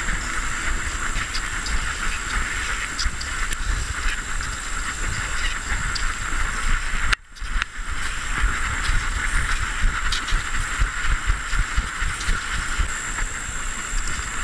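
Wind rumble and hiss on a GoPro camera strapped to a running dog's back, with uneven jolts and buffeting from its movement. The sound cuts out for a moment about seven seconds in.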